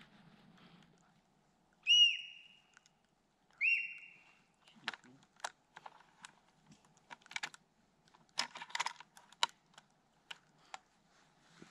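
Two short, high whistle calls of the kind sika stags make in the rut, each rising sharply at the start and then held briefly, about a second and a half apart. Then a scatter of small sharp clicks and taps, thickest around two-thirds of the way through.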